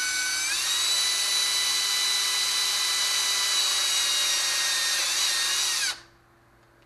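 Milwaukee M18 cordless drill running at speed, drilling a pilot hole through a 3D-printed plastic part: a steady whine that steps up slightly in pitch about half a second in, wavers briefly near five seconds, and cuts off about six seconds in.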